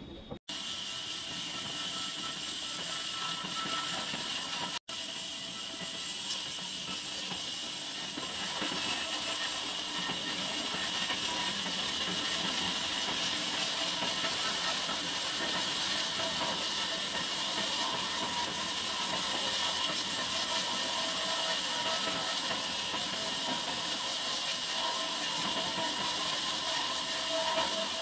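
Horizontal band sawmill blade running through a large log, a steady hiss with a faint whine underneath. The sound drops out for an instant twice in the first five seconds.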